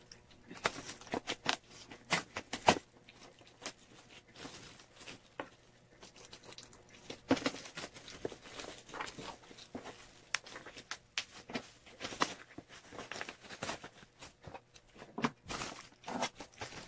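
Bubble-wrap packaging crinkling and packing tape being cut with scissors and torn off a parcel: irregular crackles, rustles and snips.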